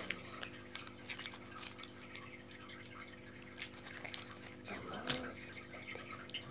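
Faint handling noises from a small object worked between the hands: scattered small clicks and rustles over a steady electrical hum.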